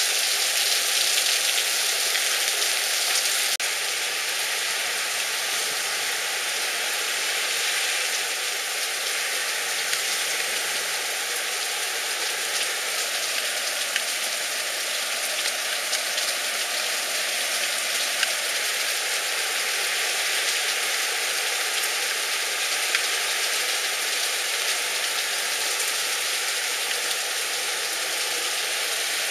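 Heavy rain falling steadily, an even hiss with a few sharper drop ticks.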